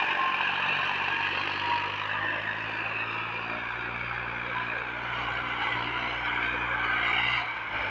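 Massey Ferguson 7235 DI 35 HP three-cylinder diesel tractor engine running steadily under load, pulling a cultivator through the soil. The low engine note eases off slightly near the end.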